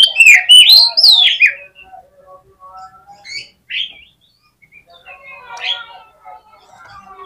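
Oriental magpie-robin (kacer) singing a loud run of rising and falling whistles in the first second and a half, then quieter chirps and chattering notes, with another louder call about six seconds in. This is the bird's fighting song, used to provoke rival males.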